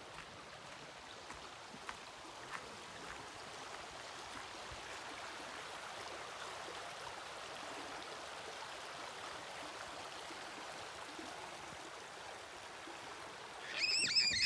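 Shallow creek flowing, a steady rushing hiss of water. Near the end a bird starts calling loudly, a quick string of high notes that rise and fall.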